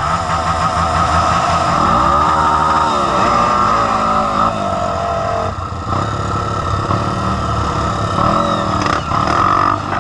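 Dirt bike engine revving up and down in bursts as it is ridden over a fallen log, with a second dirt bike's engine running steadily close by.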